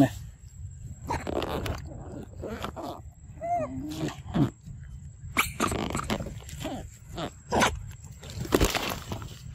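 Young macaques making short calls, one of them a falling call about three and a half seconds in, among scattered knocks, scuffs and rustles.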